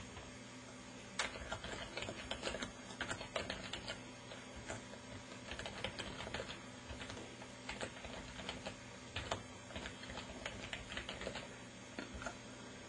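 Typing on a computer keyboard: irregular runs of quick key clicks, starting about a second in, with a few louder single keystrokes.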